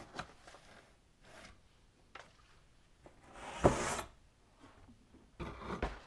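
Cardboard packaging being handled: one sharp knock and scrape of cardboard a little past halfway, with quieter rustles and taps near the end.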